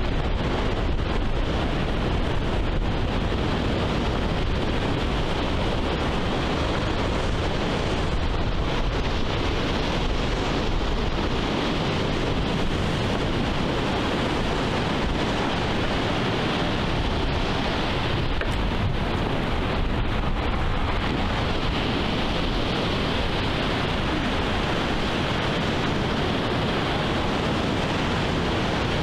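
Steady wind and ocean surf, with a low rumble of wind on the microphone.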